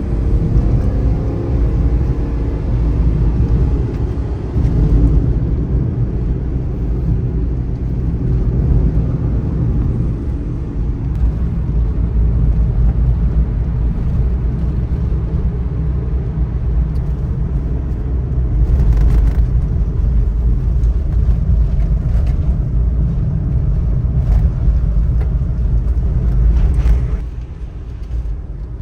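Kei truck driving on a road: the small 660 cc engine and tyres give a steady low rumble, which drops in level sharply about a second and a half before the end as the truck eases off.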